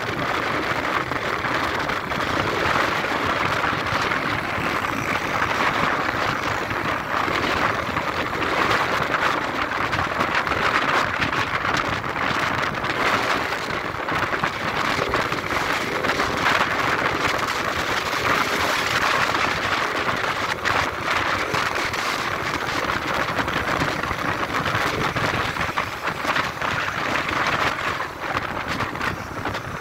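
Steady rush of wind on the microphone of a moving motorcycle, mixed with the motorcycle's running and road noise.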